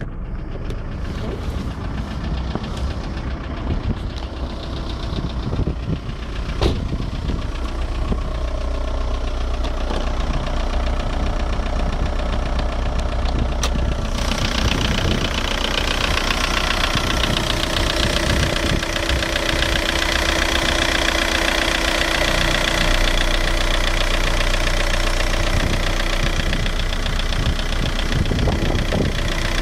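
VW 1.9 TDI four-cylinder turbodiesel idling with a knock, which the owner traced to the engine's bottom end. About halfway through the sound turns brighter and a little louder.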